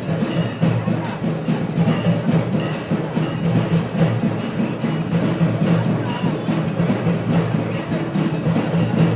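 Music with steady, rhythmic percussion over held low tones.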